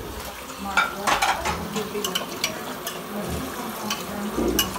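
Tap water running into a stainless steel sink during washing-up, with a few sharp clinks of dishes and utensils.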